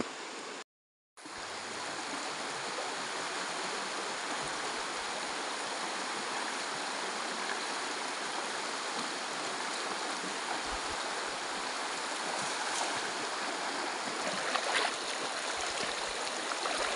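Shallow river running steadily over stones and gravel, with a few light splashes in the water near the end. The sound cuts out briefly about a second in.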